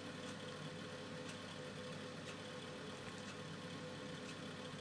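Faint room tone: a steady low hum with a soft tick about once a second.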